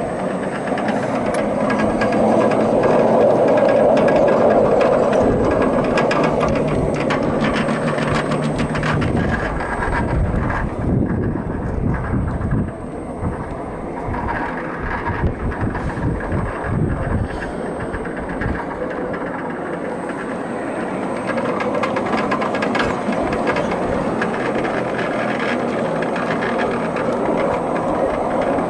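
Ride-on 5-inch gauge Whitcomb model locomotive running along its garden track: a steady rumble of the train and its steel wheels on the rails, with a stretch of sharp clicks in the middle of the run.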